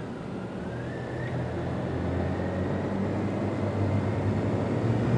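Motorcycle engine and wind noise while riding, the engine note getting stronger and louder from about two seconds in as the bike accelerates.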